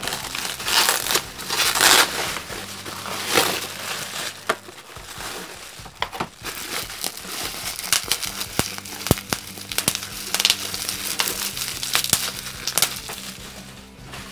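Plastic bubble wrap crinkling and rustling as it is handled and pulled off a boxed set of paints, with irregular sharp crackles throughout, loudest about one to two seconds in.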